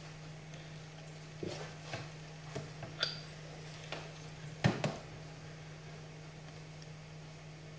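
Wooden chess pieces being picked up and set down on a wooden board: several short knocks, the loudest a double knock past the middle, over a steady low hum.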